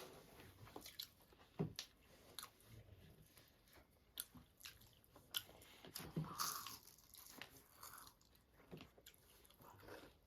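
Faint mouth sounds of someone eating: soft chewing with scattered small clicks and smacks.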